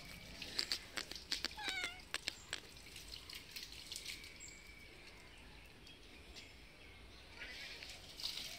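A cat gives one short, wavering meow about two seconds in, among a scatter of light clicks and taps; a soft rustling comes near the end.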